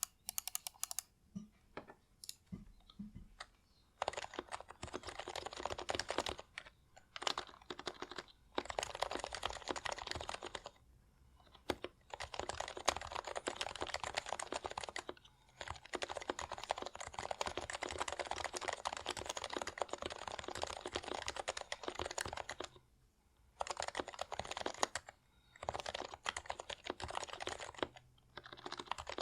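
Typing on an HHKB Hybrid Type-S keyboard, its Topre switches fitted with HHKB Pro 2 domes, unlubed stock sliders and blank keycaps. A few separate keystrokes, then long runs of fast typing with short pauses in between.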